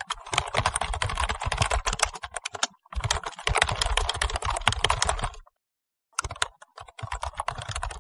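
Keyboard typing sound effect: rapid clicking keystrokes in three runs, with a brief break about three seconds in and a longer silent pause a little after five seconds.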